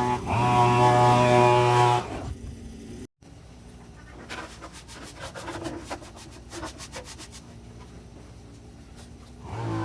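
Background music with a low drone cuts off about two seconds in. After a brief dropout, a quieter stretch of faint rubbing and a quick run of clicks follows, and the music returns near the end.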